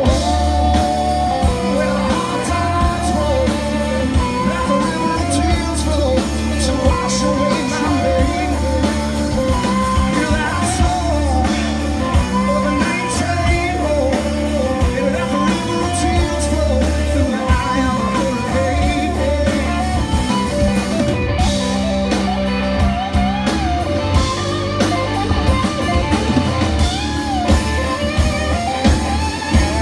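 Live rock band playing loud: two electric guitars over a drum kit and bass, with a wavering lead guitar line on top.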